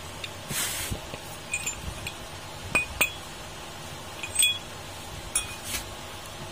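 Metal parts of a dismantled freezer condenser fan motor clinking together as they are handled: several light, ringing clinks, after a brief scrape about half a second in.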